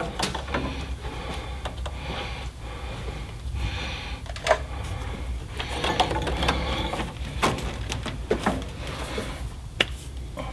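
Irregular clicks, clinks and light knocks of hand tools and metal fuel-line fittings being handled, with a few sharper clinks, over a low steady hum.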